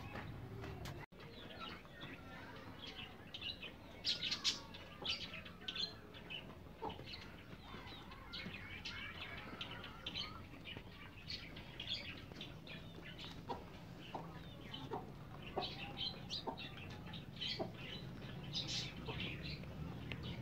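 Desi hens and their chicks clucking and chirping softly while they feed, with many short calls scattered throughout.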